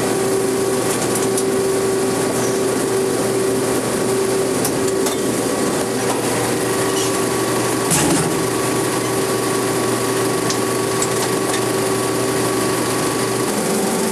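Film projector running in a projection booth: a steady mechanical whir with a constant hum and a brief knock about eight seconds in.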